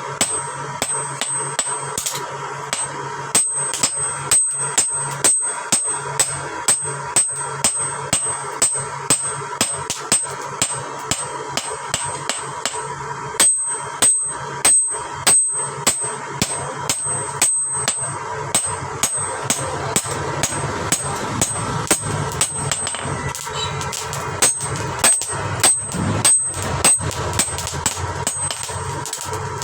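Hammer striking metal in a steady run of blows, about two a second, each with a brief high ring.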